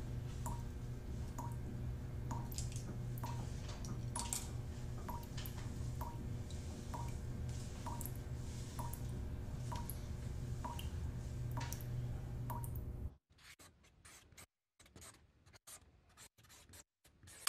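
Hair rustling and scratching under a person's hands, over a steady low hum and an even tick about twice a second. Near the end the sound breaks up into stuttering clicks and gaps and finishes on a single ringing strike.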